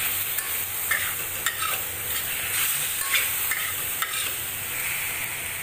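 Chicken breast pieces and tomato sizzling in a stainless steel wok while a metal spatula stirs them, scraping and clicking against the pan every half second or so over a steady frying hiss.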